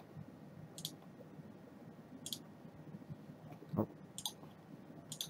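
Computer mouse clicking: single clicks spaced a second or more apart, with a quick double click about four seconds in. A brief soft low sound comes just before the double click.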